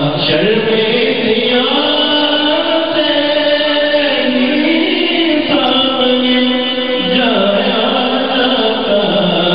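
A man singing an Urdu naat into a microphone, a melodic devotional chant of long held notes that step from one pitch to another.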